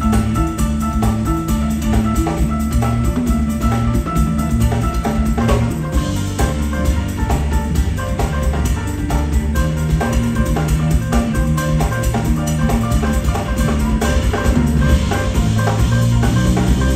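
Live jazz band playing, with bass and drum kit under a bright, pitched melodic line.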